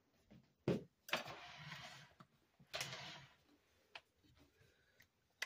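Quiet clatter of kitchen utensils as a wire whisk is fetched: a knock about a second in, two short scraping rattles, then a few light ticks.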